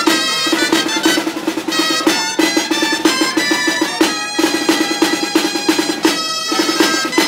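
A waltz played live by a small street band: reedy wind instruments carry the melody over a snare drum and bass drum, the snare rolling steadily through each phrase. The music pauses briefly between phrases about every two seconds.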